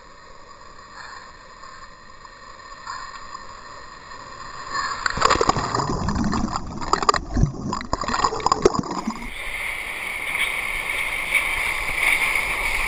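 Wave water sloshing and lapping against a water-level camera housing, then about five seconds in a breaking wave washes over the camera: loud churning, splashing whitewater for about four seconds, followed by steadier rushing water.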